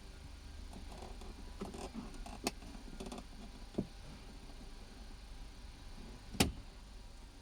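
A few separate clicks and knocks from hand work on a car's interior trim, with softer handling rustles in between and the sharpest knock about six seconds in, over a low steady hum.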